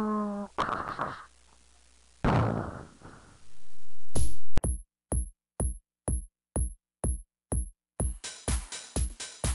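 A held, animal-like cry ends about half a second in, followed by two short noisy sound effects and a rising swell. About four and a half seconds in, electronic dance music starts with a steady kick drum about twice a second, growing fuller near the end.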